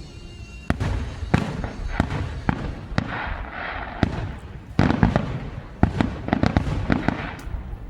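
Fireworks going off: a rapid, irregular string of sharp bangs and crackles, clustering in volleys, over a rolling low rumble from the echoing blasts.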